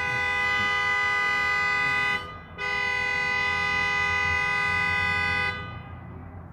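Car horn sounding in long held honks: one cutting off about two seconds in, then another of about three seconds after a short gap, a steady two-note blare. The horn is being held down on purpose, not set off by a car alarm.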